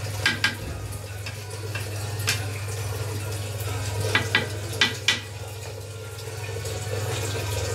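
Wooden spatula stirring rice and water in an aluminium pot: watery sloshing with a few sharp knocks of the spatula against the pot, under a steady low hum.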